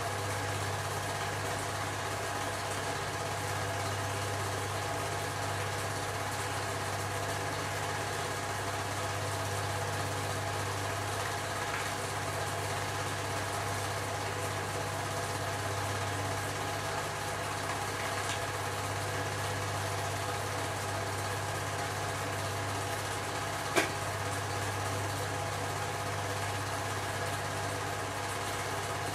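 Steady, unchanging machine hum at one pitch, with one sharp click about three quarters of the way through.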